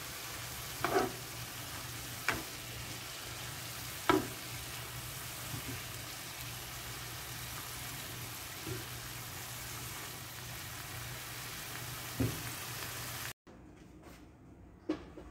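Bean sprouts and shrimp stir-frying in a nonstick pan: a steady sizzle, with a spatula knocking against the pan about six times as the food is stirred. The sizzle cuts off suddenly near the end, leaving a quieter room with a light knock.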